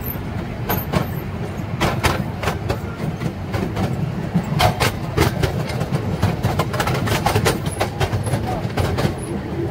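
Small amusement-park train riding along its track: a steady low rumble from the rolling cars, with frequent irregular clacks and knocks, thickest in the second half.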